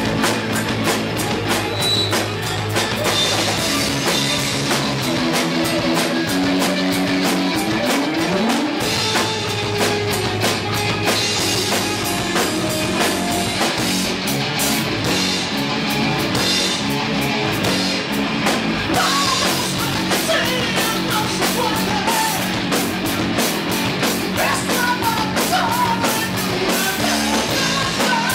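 Heavy metal band playing live: distorted electric guitars, bass and a fast-hit drum kit, picked up by a camera's built-in microphone. A wavering lead guitar line comes in over the rhythm in the second half.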